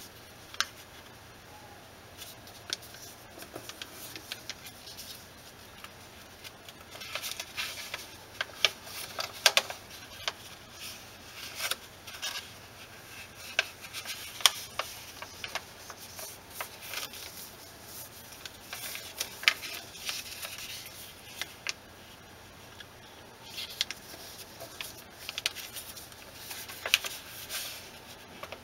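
Sheet of origami paper being folded by hand: scattered crinkles, rustles and creasing sounds as the flaps are narrowed and inside-reverse folded. They come in irregular spells with quieter gaps between.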